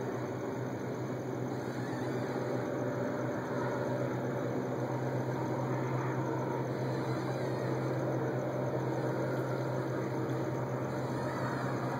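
A steady low mechanical hum over a constant wash of background noise.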